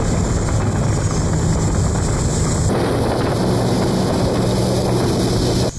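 Skiff's outboard motor running at speed, a steady low drone under heavy wind noise on the microphone; it cuts off suddenly near the end.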